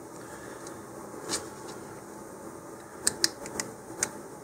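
Plastic fins of an Estes Star Hopper snap-together model rocket clicking into the holes of the plastic fin can: one sharp click about a second in, then a quick run of four or so clicks near the end, over faint room hiss.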